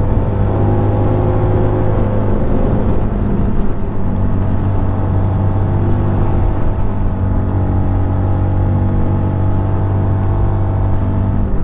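Honda CB150 motorcycle's single-cylinder engine running steadily under load on a long uphill climb, its note dropping slightly in pitch a couple of seconds in.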